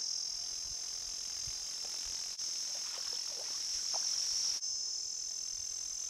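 A steady, high-pitched insect chorus: a continuous shrill trill with no breaks, with a few faint small clicks beneath it.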